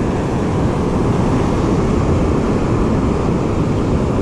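Steady wind buffeting on the microphone, mixed with the wash of ocean surf breaking on the beach.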